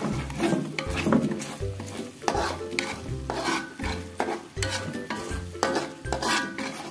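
Metal spatula stirring and scraping a thick blended spice paste around an aluminium wok, about one to two strokes a second, with the paste sizzling in hot oil as it is sautéed until cooked.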